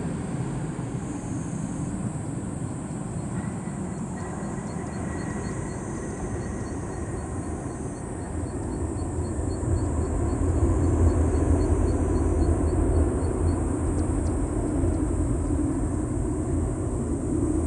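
Boeing 737-800 airliner's CFM56-7B jet engines rumbling during the landing roll, swelling louder about halfway through as reverse thrust is applied.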